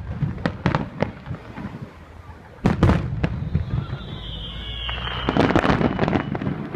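Aerial firework shells bursting in a finale barrage: a few sharp bangs in the first second, heavy booms near the three-second mark, then a dense run of crackling bursts a little after five seconds.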